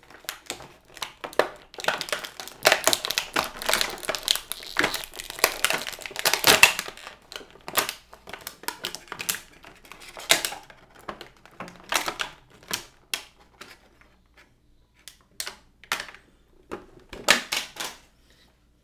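Clear plastic packaging tray crinkling and clicking as an action figure is pulled out of it. It is dense for the first several seconds, then turns to scattered sharp crackles and clicks.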